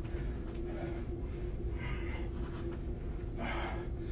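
A man breathing hard between reps of a side plank rotation, a few audible exhalations with the strongest near the end, over a steady low hum.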